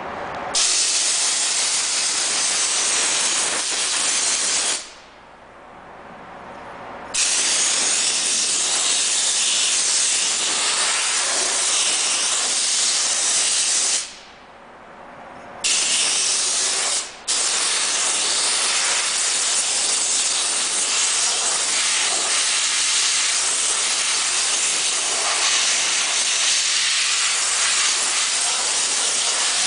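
High-pressure steam cleaner's gun hissing in long steady blasts of steam. It cuts off twice for a couple of seconds at a time, and once only for an instant.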